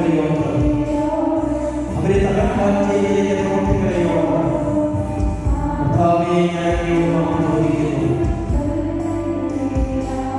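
Slow devotional music with choir-like singing: long held notes, with a new phrase starting about every two seconds.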